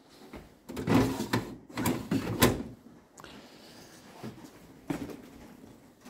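Hotpoint-Ariston fridge-freezer doors and drawers being handled and shut: a run of knocks and clatters about a second in, ending in a sharp knock about two and a half seconds in, then only faint handling noise.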